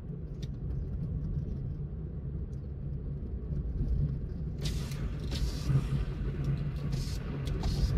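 Car driving on the road: a steady low rumble of engine and tyre noise, joined from a little past halfway by intermittent bursts of hiss.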